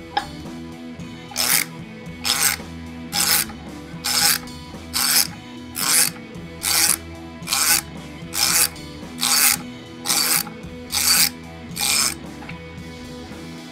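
Ratchet wrench with a 15/16 in six-point socket swung back and forth on the pinion shaft nut of a Harley-Davidson Sportster engine, its pawl rasping on each return stroke. There are about thirteen strokes, nearly one a second, as the broken-loose nut is run off.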